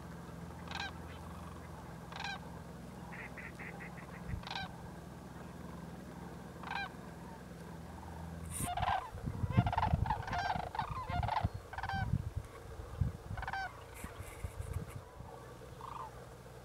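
Sandhill cranes calling: a few spaced rolling calls, then many overlapping calls in a busy stretch about halfway through, with a low rumble on the microphone under that stretch.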